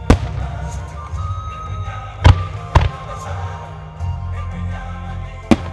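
Aerial firework shells bursting: four sharp bangs, two of them about half a second apart, over background music.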